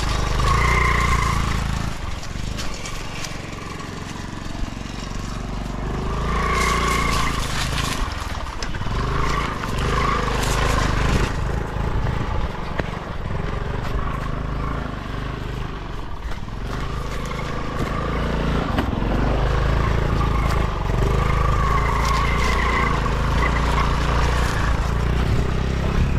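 TVS Scooty Pep scooter's small single-cylinder engine running as it is ridden over a dirt track, its sound rising and falling with the throttle. A wavering high tone comes and goes a few times over the engine.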